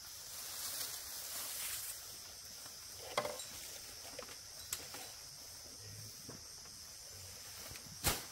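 Steady high-pitched insect chorus, with a few sharp knocks: one about three seconds in, one near five seconds, and a louder one near the end.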